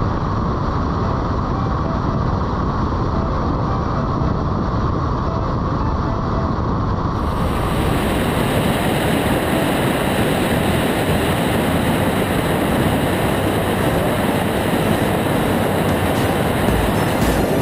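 Steady wind rush and engine drone of an Aeroprakt A22 Foxbat light plane in flight, picked up by a wing-mounted camera. About seven seconds in, the rush abruptly turns brighter and hissier.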